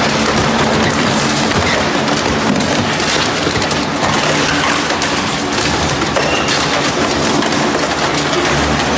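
Industrial shredder crushing a load fed from a tipping hopper: a dense, continuous crackle of rapid cracks and clatter over a steady machine hum.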